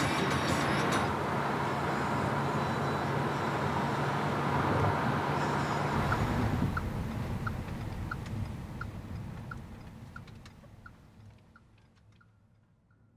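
Car driving, with steady road and engine noise. From about halfway, a turn-signal indicator ticks evenly, about one tick every 0.7 seconds, while the whole sound fades out.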